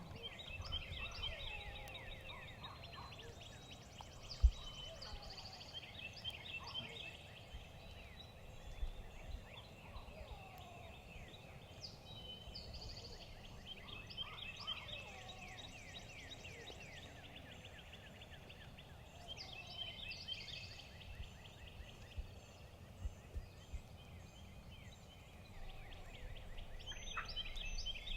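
Wild turkey gobbler gobbling several times, faint, with songbirds chirping.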